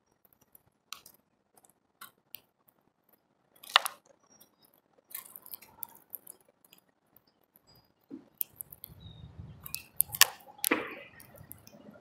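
Small birds pecking and cracking seeds at a feeder: irregular sharp clicks and crunches, with louder ones about four seconds in and twice near the end.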